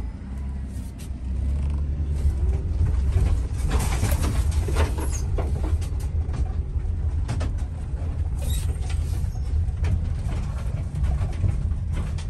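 Van engine and road noise heard from inside the moving cab: a steady low rumble, with louder stretches of hiss about four seconds in and again about eight seconds in.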